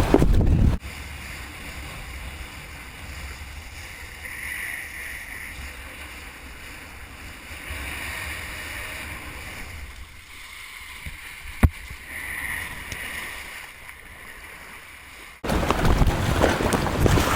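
Wind buffeting the microphone with a low rumble. It drops away about a second in to a much quieter hiss with a single sharp click, then comes back suddenly near the end.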